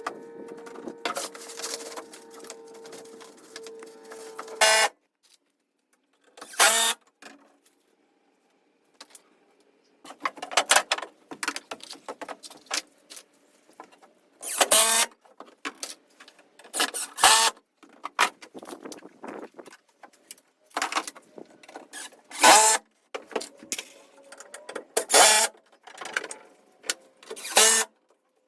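Power tools working on wood. A motor runs steadily for about five seconds and then cuts off with a click. After a pause comes a string of short, loud bursts, about one every two to three seconds.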